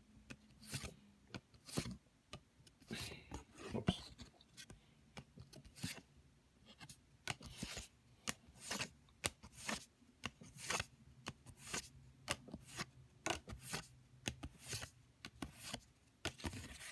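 Thin cardstock code cards being flipped and slid against one another in the hands, one after another: a string of short rustling flicks and taps, one to three a second.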